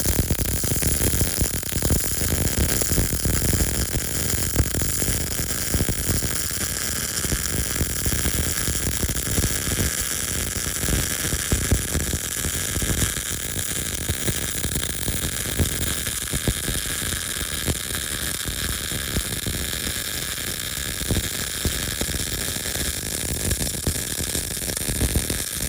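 MIG welding arc crackling steadily as a continuous bead is run on quarter-inch steel plate with a PrimeWeld MIG180, feeding 0.035-inch wire under 75/25 argon-CO2 shielding gas.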